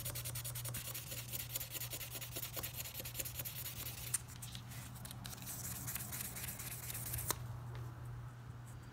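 Hand-sanding a steel knife blade with a small piece of 1200-grit sandpaper to clean the dark residue off a freshly electro-etched logo. Quick scratchy back-and-forth strokes run for the first few seconds, then thin out into slower, sparser rubs, with a light tick near the end. A steady low hum runs underneath.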